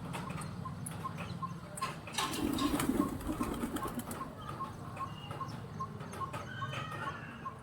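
Pigeons flapping their wings in a flurry that swells about two seconds in, with scattered pecking-like clicks. A faint regular ticking runs underneath, about three ticks a second.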